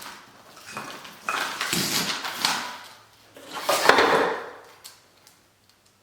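Hard objects being handled, clattering and knocking in two main bursts, about a second in and about four seconds in.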